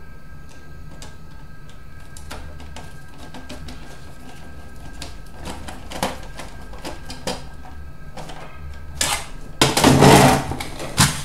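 Small metal parts and screws being handled on a workbench while a DVD player is put back together: scattered light clicks and taps, then a louder clatter and scrape about nine seconds in.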